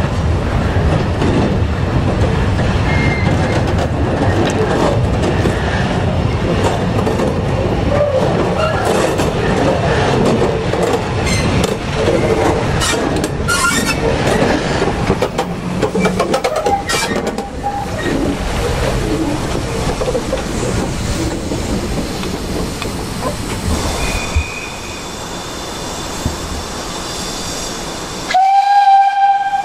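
BR Standard Class 2MT 2-6-0 steam locomotive 78022 running slowly past, with a rumble, clanking motion and wheels clicking over rail joints that fade after about eighteen seconds. Near the end a loud, steady steam whistle starts suddenly and holds.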